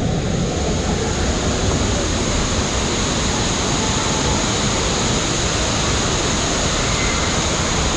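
Steady rush of moving water in a water park's circular current channel (lazy river).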